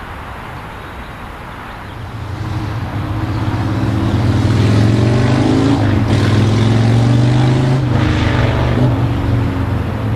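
An engine's low drone grows louder about two seconds in and stays loud, with its pitch wavering slightly.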